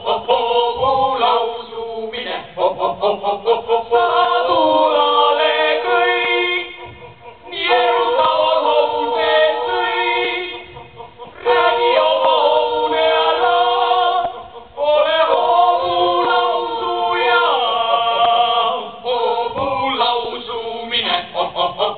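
A group of voices singing a cappella: short, quick notes at first, then chords held in phrases of a few seconds, with brief breaks between them.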